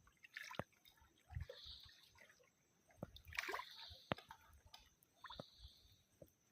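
Faint water sounds: small splashes and drips, with a few scattered sharp clicks.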